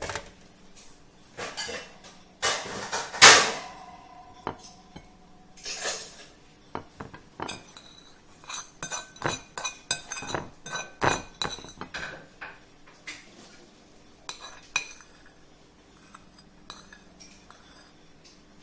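Hands working at a plate with utensils: irregular clinks, taps and light knocks of dishware, with a few louder swishing handling noises about two to three seconds in.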